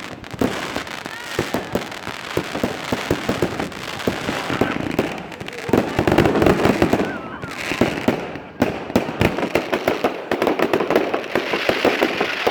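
Fireworks display: a continuous run of bangs and crackling from bursting shells, densest about six to seven seconds in and again near the end.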